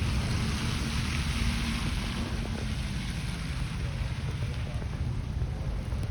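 Blizzard wind buffeting the microphone: a steady low rumble under a rushing hiss.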